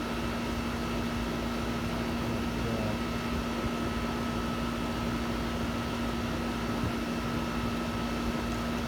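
Air-conditioning condenser unit running on R22 refrigerant: a steady electric hum with a constant tone over an even noise.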